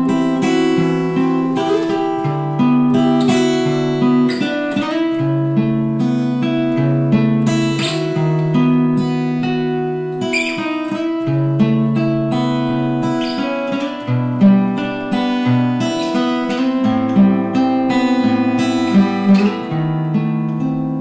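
Steel-string acoustic guitar played fingerstyle: a moving bass line under a picked melody, with a few sharply accented notes in the second half.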